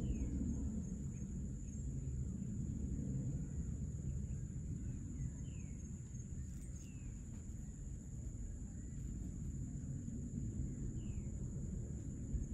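Evening outdoor ambience: a steady high drone of insects, with a few short, falling bird calls scattered through it, over a low background rumble.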